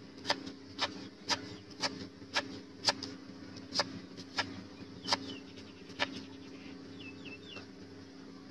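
A wide kitchen knife chopping through a firm white vegetable onto a wooden chopping block, about two sharp knocks a second, stopping about six seconds in. Near the end a bird chirps three times.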